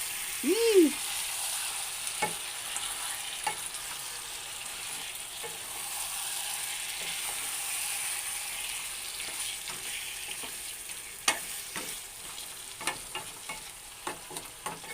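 Mutton curry frying and sizzling in a pan while it is stirred, with utensil clicks and scrapes against the pan that get more frequent in the last few seconds. A brief tone that rises and falls sounds about half a second in.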